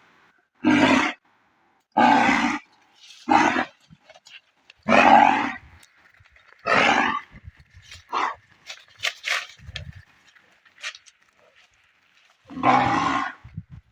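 A bull groaning in distress, one short loud groan about every second or two, seven in all, with a long pause after the sixth. The title blames the bull's bad condition on a venomous snake.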